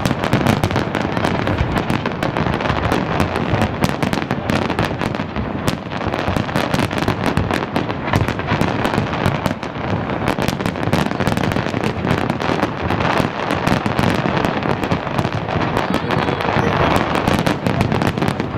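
Large fireworks display going off without a pause: many bangs and crackles overlapping densely throughout.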